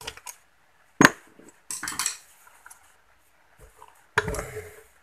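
Metal hand tools clinking and knocking against the aluminium crankcase of a Yamaha V80 two-stroke engine during disassembly: a few sharp metallic knocks, the loudest about a second in, and a longer rattling clatter near the end.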